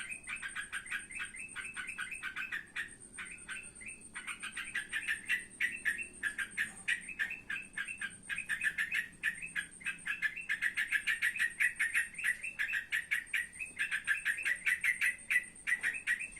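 A trotokan bird calling in long, fast runs of chattering notes, many to the second, with a brief lull about three to four seconds in. A thin, steady, very high whine runs alongside, breaking off now and then.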